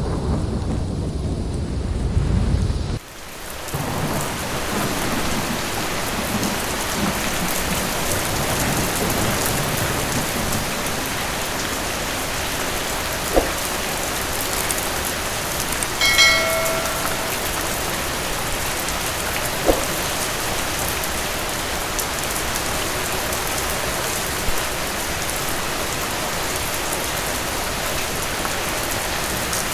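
Steady rain falling, with a low thunder rumble in the first three seconds that cuts off abruptly. A brief high pitched tone sounds about sixteen seconds in, and there are a couple of sharp clicks.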